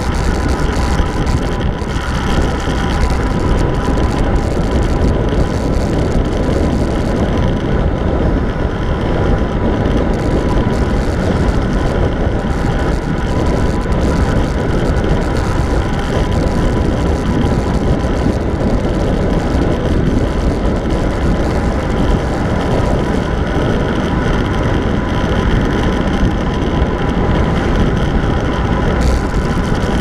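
Loud, steady rush of wind over the microphone of a handlebar-mounted camera on a road bike descending fast.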